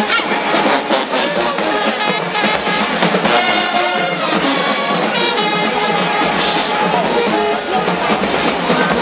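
HBCU-style marching band playing loudly: trombones and trumpets over a driving drumline.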